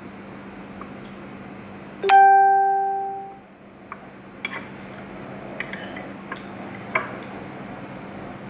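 A single bell-like ring that dies away over about a second and a half, then several light clinks of a metal fork against a plate, over a steady low hum.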